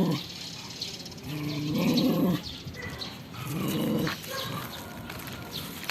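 A dog vocalizing in three drawn-out pitched calls, each about a second long and about two seconds apart.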